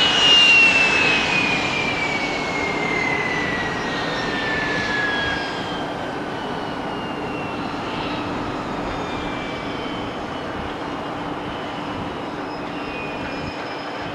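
Jet airliner engines. A high whine falls steadily in pitch and fades over the first half as the aircraft moves away, over a steady rumble of engine noise.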